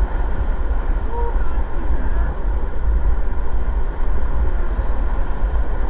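Rushing, choppy river water around an inflatable raft, with wind buffeting the camera microphone in a steady low rumble. Faint brief voices come through about one and two seconds in.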